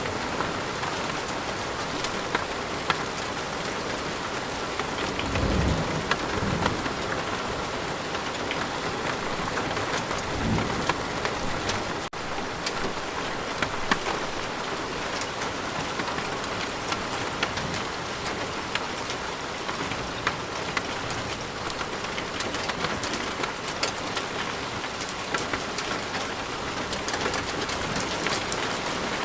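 Steady rain pattering, full of fine drop ticks. Low rolling thunder rumbles about five seconds in and again about ten seconds in.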